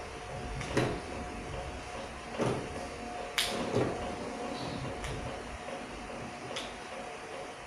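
Conveyor-belt metal detector line running with a steady faint hum, broken by about six short knocks and clacks, the sharpest a little over three seconds in.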